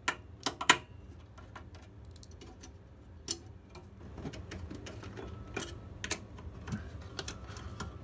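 Screwdriver working screws out of a steel computer-case bracket: scattered, irregular metallic clicks and ticks, the loudest just under a second in.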